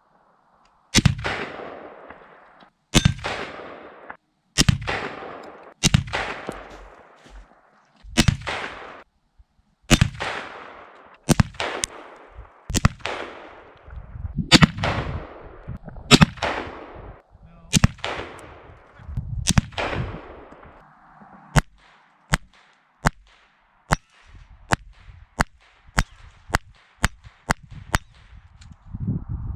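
Rifle shots heard from beside the target downrange. About thirteen shots come one to two seconds apart, each with a long echoing tail. From about two-thirds of the way in, about a dozen shorter, sharper cracks follow more quickly, roughly two a second.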